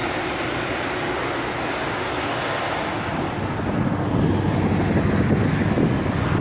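Airbus A380's Engine Alliance GP7200 turbofans running at taxi power: a steady jet rush with a high whine. About four seconds in a deeper, louder rumble builds.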